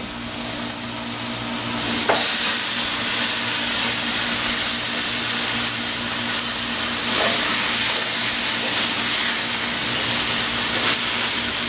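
Marinated pork chops sizzling on a smoking-hot grill grate, a steady loud hiss of searing meat. The sizzle grows louder about two seconds in as more chops go on, and stays loud.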